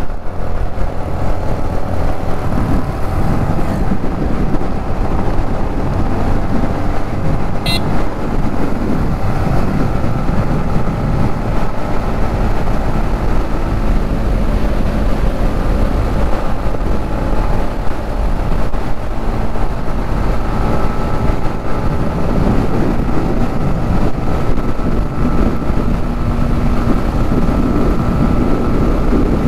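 Motorcycle engine running steadily while riding, with road and wind noise. A brief high-pitched sound cuts in about eight seconds in.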